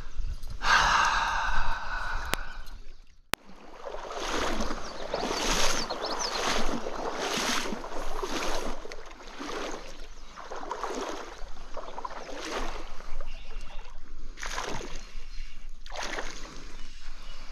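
Water sloshing in a steady rhythm about once a second, like legs wading through a shallow trout stream. A short burst of other noise comes before it in the first two seconds.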